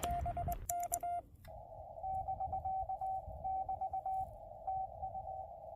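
Morse code beeping from a portable ham radio, a single tone near 700 Hz keyed in short and long beeps. For about the first second the beeps are clean and sharp. After a short break they go on inside a steady band of receiver hiss.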